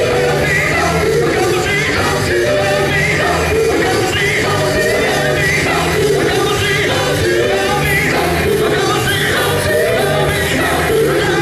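Male gospel vocal group singing live into microphones, several voices together over a band with bass guitar and drums.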